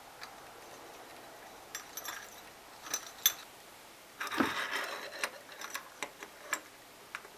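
Small clicks, knocks and clinks of cups and kitchenware being handled while tea is made, with a short rush of noise about four seconds in.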